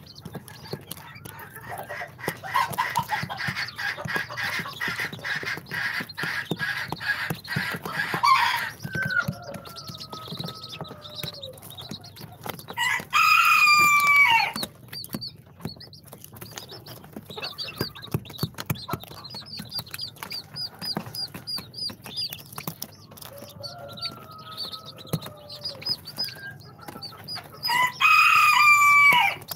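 Baby chicks peeping throughout, with short lower chicken calls mixed in. Twice, about halfway through and again near the end, a loud crow lasting about a second and a half rises over the peeping.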